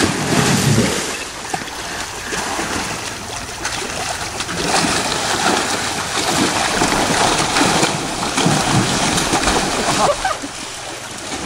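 Young Asian elephants splashing and wallowing in a shallow muddy stream: water sloshing and splashing continuously as they roll and step through it.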